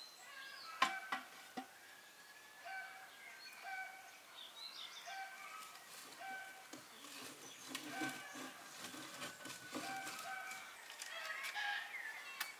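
Split firewood knocking and clattering as it is picked up and loaded into a wood stove, with sharp knocks about a second in and a busier run of clatter in the second half. Birds call throughout in short, evenly repeated notes.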